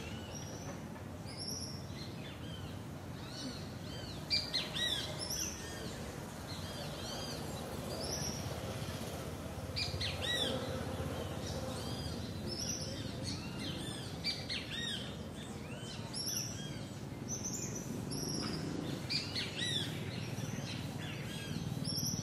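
Morning village ambience: many small birds chirping and calling, short repeated chirps overlapping throughout, over a steady low background rumble.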